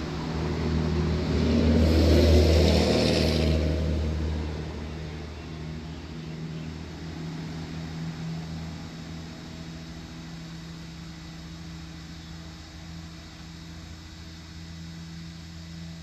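A vehicle passing by: a rushing sound that swells to its loudest about two seconds in and then fades, leaving a steady low hum.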